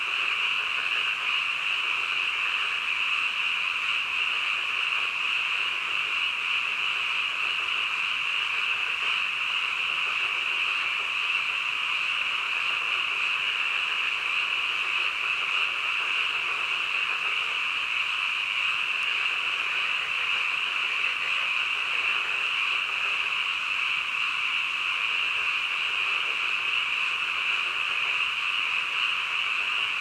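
Dense chorus of many frogs calling at once, merging into a steady, unbroken din.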